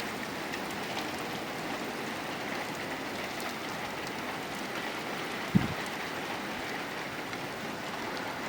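Steady rain falling, with scattered faint drop ticks and one brief low thump about five and a half seconds in.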